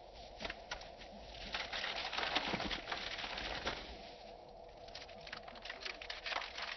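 Paper banknotes rustling and crackling as bundles of cash are handled and counted, with a denser stretch of rustling in the middle and a run of quick crisp flicks near the end.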